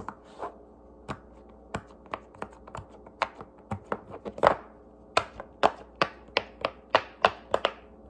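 Rainbow silicone pop-it fidget toy's bubbles being pressed in one after another: a string of short, sharp pops, a few at a time at first, then coming faster after about three seconds.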